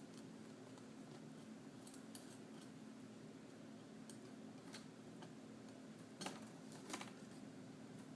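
Faint, scattered small clicks and ticks of a small Phillips screwdriver working a screw out of a laptop screen's hinge bracket, about six over several seconds, over a low steady hum.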